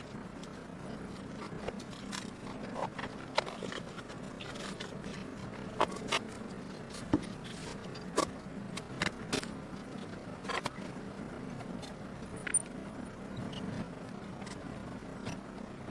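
Irregular small clicks, taps and scrapes of paper and glitter-paper strips being handled and pressed down by hand, over a steady low hum.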